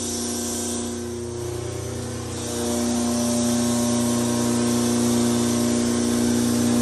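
Gardner Denver 75 hp water-cooled rotary screw air compressor running on its three-phase electric motor: a steady hum of several tones with air hiss over it, growing louder about two and a half seconds in.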